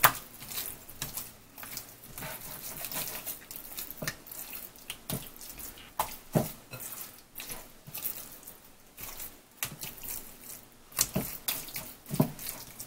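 Bare hands squishing and turning raw chicken breast fillets coated in oil and spices in a glass bowl, making a run of irregular wet squelches.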